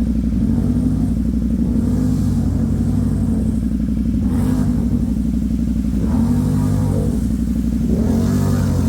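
ATV engine running under way, its pitch shifting with the throttle and rising near the end.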